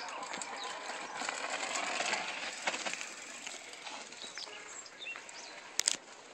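A mountain bike rolling down a steep dirt descent and passing close: tyres crunching over loose soil and stones, with rattling and clicking from the bike, loudest about two seconds in and then fading. A single sharp click comes near the end.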